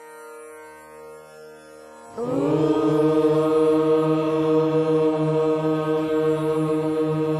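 A soft, sustained instrumental drone, then about two seconds in a group of voices comes in loudly with a long chant held on one steady note over it.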